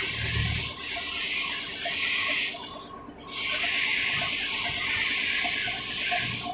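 A loud, high-pitched, even hiss that breaks off for about half a second near the middle, starts again and stops suddenly at the end.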